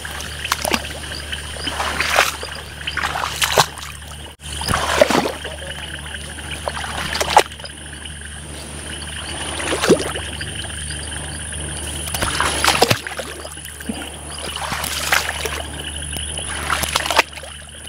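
Wading through shallow floodwater while pulling a canoe: water sloshing and splashing with each step, every second or two, over a steady high-pitched chorus.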